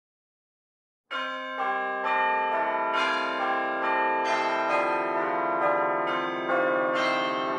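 Bells ringing in a peal, a new bell struck about twice a second with each note ringing on under the next. The peal starts about a second in, after a moment of silence.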